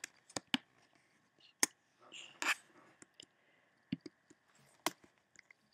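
Computer mouse clicking, about six short, sharp clicks spread unevenly, with a soft breathy sound about two seconds in.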